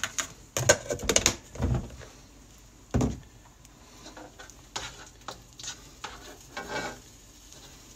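A spoon scraping and knocking against a nonstick wok as lumps of butter are dropped in, in a string of irregular knocks and scrapes, with a louder dull thump about three seconds in.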